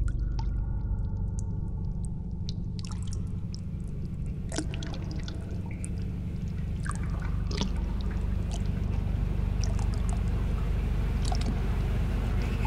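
Bathwater sloshing and dripping, with scattered small splashes and drips over a steady low rumble.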